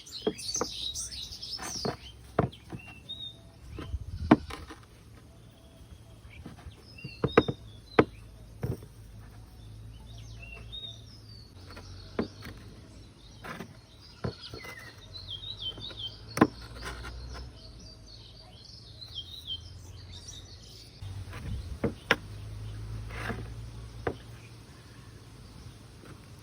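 Knife cutting into packed sand, heard as a series of sharp, irregular clicks and taps, with small birds chirping throughout.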